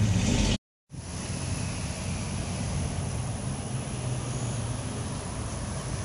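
Steady rumble of distant road traffic, with a brief drop to dead silence at an edit a little over half a second in.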